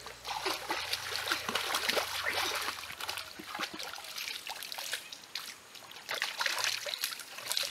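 Shallow stream water trickling and splashing as hands scoop and slap through it, a quick irregular run of small splashes.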